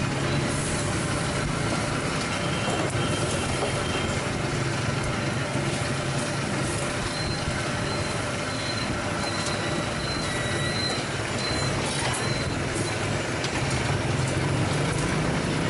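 Electric-motor rotisserie grill machine turning skewers of sausages and pork over charcoal: a steady mechanical running noise with a low hum.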